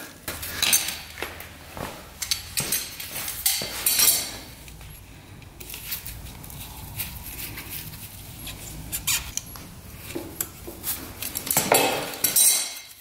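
Small metal parts and hand tools clinking and tapping irregularly while a motorcycle engine is worked on, with a cluster of louder clinks near the end.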